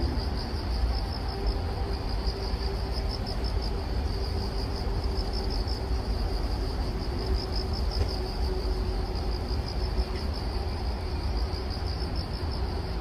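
Insects trilling steadily in one high, rapidly pulsing note, over a low steady rumble.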